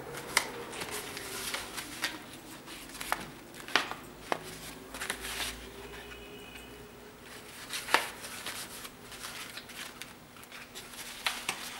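Hand handling of a fabric drawstring pouch and the rope shoelaces drawn out of it: soft rustling and rubbing with a few sharp taps and clicks, the loudest about eight seconds in.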